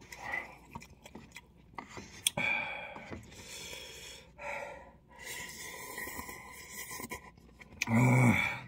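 Wooden chopsticks stirring noodles in a cup of instant ramen, rubbing and scraping against the cup, with a sharp click a couple of seconds in. Near the end comes a short, loud voiced sound from the eater.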